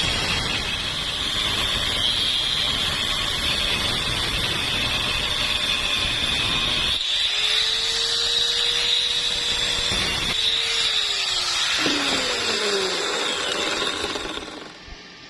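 Electric power tool running with a steady high whine and a rough, crackling noise. Near the end its pitch falls as it spins down, then the sound stops.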